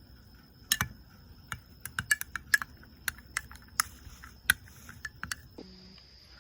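Light, irregular clicks and taps of a hard utensil against a cup, as hot liquid soft-lure plastic with glitter is stirred and handled. There are about fifteen sharp ticks spread over some five seconds.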